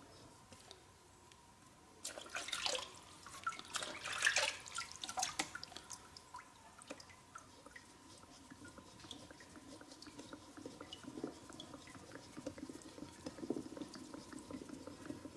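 Wet sharpening at a natural whetstone: a few seconds of water dripping and splashing starting about two seconds in, then softer wet rubbing as a plane blade is stroked back and forth on the stone.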